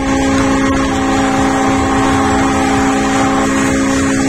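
Large yachts' horns sounding together in one long, unbroken chord of several overlapping tones, over a low rumble.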